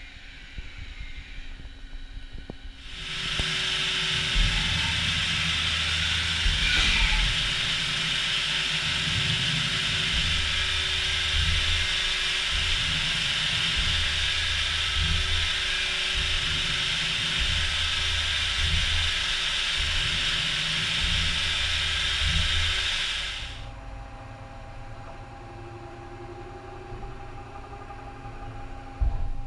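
Haas SL-40 CNC lathe at work: a loud, steady hiss starts about three seconds in and cuts off about three-quarters of the way through, over an uneven low rumble, with a quieter machine hum before and after.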